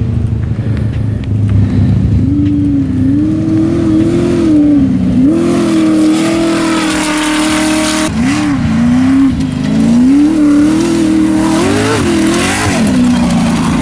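Off-road race vehicle's engine running hard, its pitch rising and falling again and again as it revs and shifts, with a sudden break about eight seconds in.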